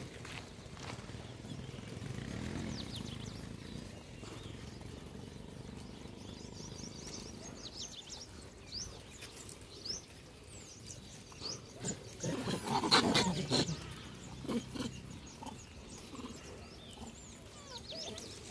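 A troop of rhesus macaques. Short scattered high calls, then a loud burst of overlapping monkey calls about twelve to fourteen seconds in.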